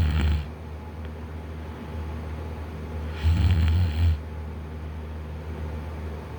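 A man snoring in deep sleep, lying on his back with his mouth open. One loud snore fades out just at the start and another comes about three seconds in, lasting about a second, with quieter breathing between them.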